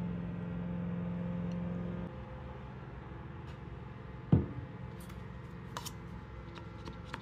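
A steady low machine hum stops about two seconds in. About two seconds later comes a single sharp knock, followed by light clicks and taps as a wooden stir stick works in a paper cup.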